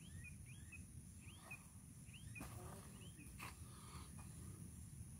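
Faint chirping of a small bird, a run of short up-and-down notes, over a low wind rumble, with two soft knocks about a second apart near the middle.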